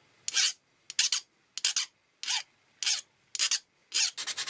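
Flat hand file rasping across a brass guitar nut, about seven steady strokes roughly two thirds of a second apart, shaping its edges and corners. Near the end, quicker and shorter rubbing strokes take over.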